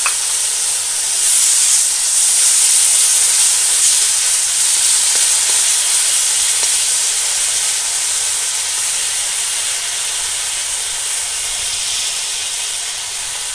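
Ginger paste, tomatoes and green chillies sizzling in hot oil in an iron wok as a spatula stirs them. A steady hiss, a little louder about two seconds in, easing slightly toward the end.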